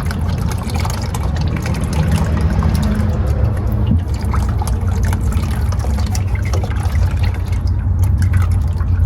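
Automatic transmission fluid pouring steadily out of a loosened transmission pan on a GM 200-4R four-speed automatic.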